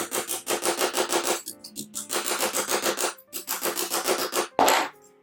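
Rapid back-and-forth rubbing strokes on a sheet-metal carriage lamp part, about eight a second, in short runs with brief pauses and one louder stroke near the end.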